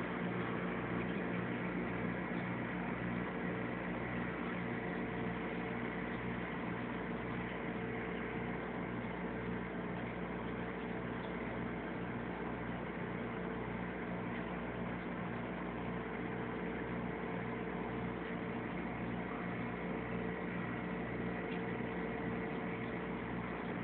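Aquarium pump humming steadily, a low electrical hum with a faint regular pulse, over a steady hiss.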